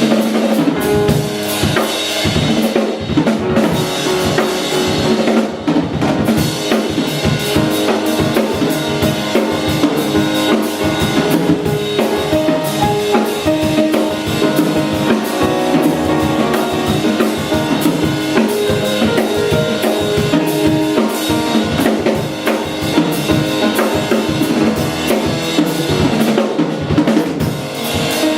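Live instrumental band music with a drum kit, kick and snare, keeping a steady beat under sustained melodic instruments, loud and continuous.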